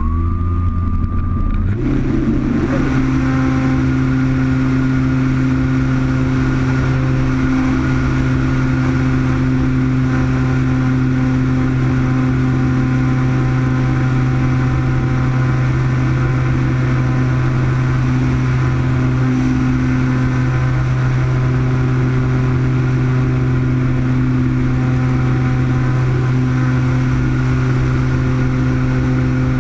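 E-flite Apprentice RC trainer's electric motor and propeller, heard from a camera on the plane itself. The motor whines up to speed in the first second or two, then holds a steady pitch with a rush of air noise through the takeoff and flight.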